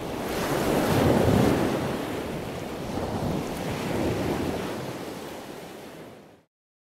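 Ocean surf, waves breaking and washing in, swelling twice and then fading out.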